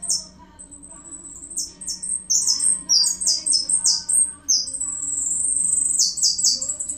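Caged songbird singing: a run of high, quick downward-sweeping whistled notes, a long high trill a little past the middle, then three more fast descending notes near the end.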